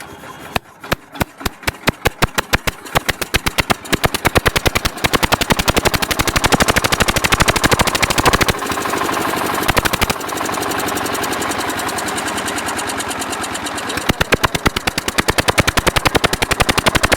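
Water-cooled generator engine, just rebuilt, being hand-cranked and catching. Slow separate chugs quicken within a few seconds into a fast, steady exhaust beat, which eases somewhat in the middle and grows louder again near the end.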